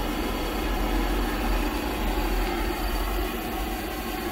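Pentair MasterTemp 400 gas pool heater running just after lighting: its combustion blower fan and gas burner make a steady low rumble with a hum, the heater firing normally.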